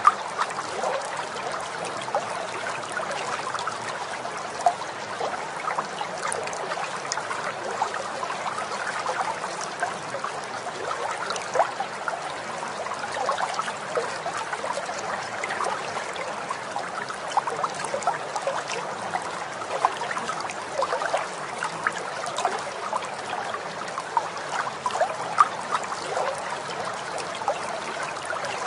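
Running water trickling and splashing steadily, with many small sharp plinks scattered through an even rush.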